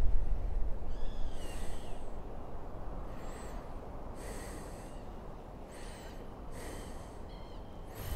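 A low rumble fades out over the first couple of seconds. Under a soft, airy ambience, a string of short, high-pitched animal cries follows, about six or seven of them. Each cry is a brief arching call with a breathy, rasping edge.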